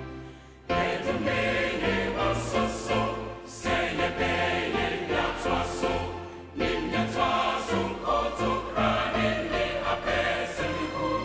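Music with a choir singing over a steady bass line, in phrases that restart about every three seconds.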